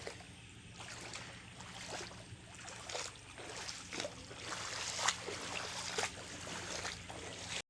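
Floodwater running, a steady rushing trickle broken by irregular small splashes about once a second.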